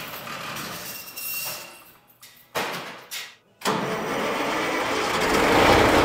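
Kenworth W900 semi truck's diesel engine starting a little past halfway through, then running and growing louder.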